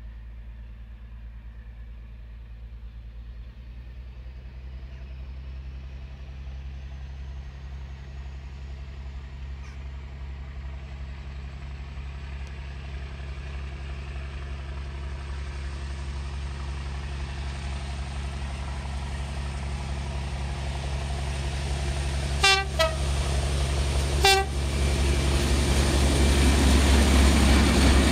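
Class 42 Warship diesel-hydraulic locomotive D821 Greyhound approaching under power, its twin Maybach engines growing steadily louder, with a faint high whine slowly rising in pitch. Two short horn blasts about two seconds apart near the end, as the locomotive comes up to pass.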